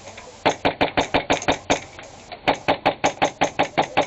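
Airsoft rifle firing two quick strings of sharp shots, about six or seven shots a second, with a short pause of under a second between the strings.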